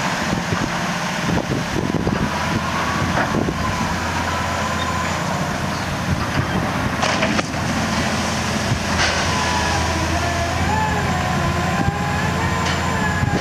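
Sennebogen 6140E HD dragline crane with its Cat C27 diesel engine running steadily under load while the machine swings and lowers its Esco bucket. Over the engine comes a thin mechanical whine that wavers in pitch, plus a few short knocks.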